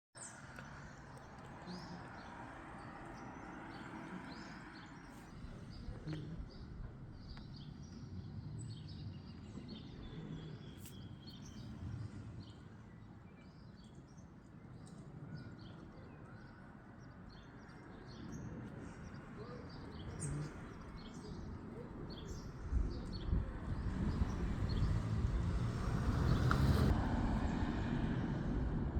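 Birds chirping over a low jet-engine rumble from a Boeing 737-700 with CFM56-7B turbofans. The rumble grows steadily louder over the last several seconds as the aircraft draws nearer.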